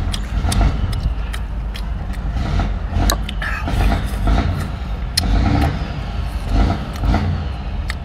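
Sea snail shells clicking in the fingers while a man sucks and chews the meat out of them, over a steady low rumble.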